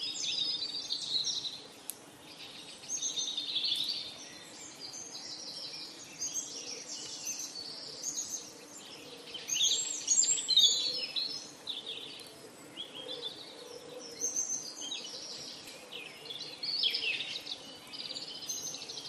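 Songbirds chirping and trilling without a break, several calls overlapping, over a faint steady background noise.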